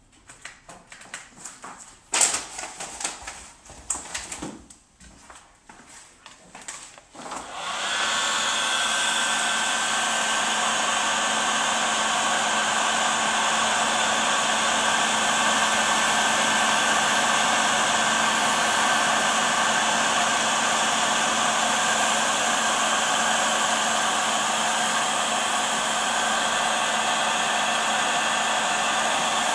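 Heat gun switches on about a quarter of the way in and runs steadily, blowing hot air to shrink heat-shrink sleeving over a braided cable end. Before it starts there are a few knocks and rustles.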